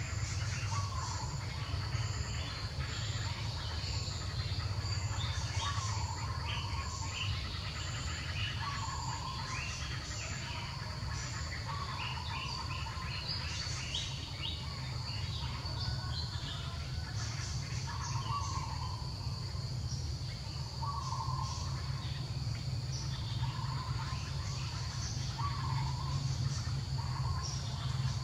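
Tropical forest ambience: a steady high insect drone, with a sharper insect pulse about once a second through the first dozen seconds. Over it a bird repeats a short call every second or two, with a steady low hum underneath.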